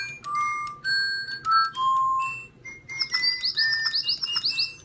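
Two Spin Master DigiBirds electronic toy birds in choir mode singing together: a melody of clean whistled notes, then about three seconds in a quick run of rapid sweeping chirps.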